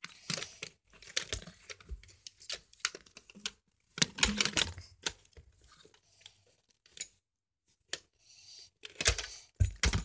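Hands handling plastic toys and a toy blaster on carpet: irregular clicks, knocks and rustling, busiest about four seconds in and again near the end.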